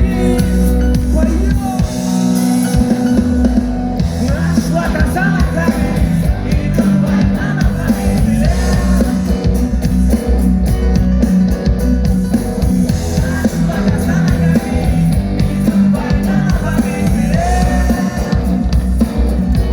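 Loud rock song with guitar, drum kit and a singing voice.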